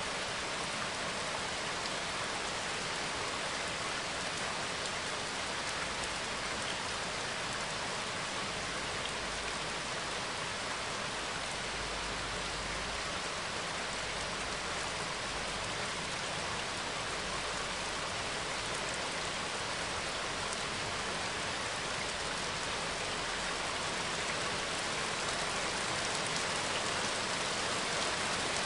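Steady rain falling, an unbroken hiss of drops from a background rain recording.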